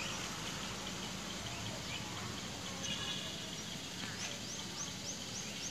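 Low steady hiss of hot oil with mustard seeds in a clay pot, before the seeds begin to pop. A bird chirps quickly several times near the end.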